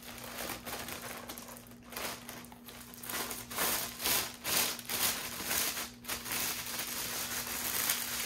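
Thin clear plastic bag crinkling and rustling as it is worked off a potted plant, with louder rustles from about three seconds in.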